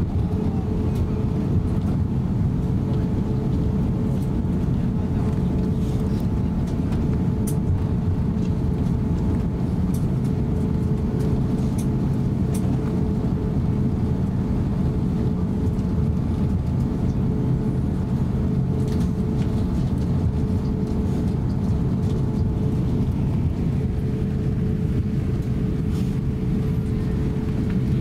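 Cabin noise inside an Airbus A350-900 taxiing on the ground: a steady low rumble with a steady mid-pitched hum over it, and faint scattered ticks.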